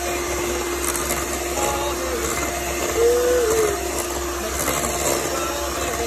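Electric hand mixer running steadily with a constant hum, beating strawberry cake batter in a bowl.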